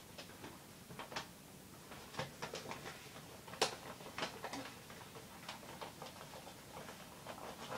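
Faint, irregular clicks and taps of small objects being handled and rummaged through, with one sharper click a little past the middle.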